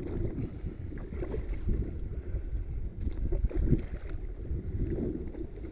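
Wind rumbling on the microphone over water sloshing against a small boat's hull, with a few irregular slaps of water near the middle.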